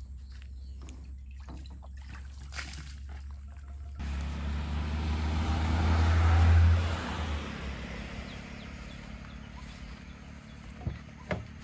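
A vehicle passing by, its noise swelling to a peak about two-thirds of the way through and then fading, over a low steady hum. A few light clicks come near the end.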